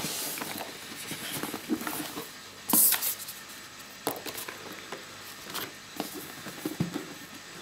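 Cardboard packaging being handled: a boxed filter kit slid up and out of a cardboard shipping carton among foam packing pieces, with a brief rustling scrape about three seconds in and a few light knocks after it.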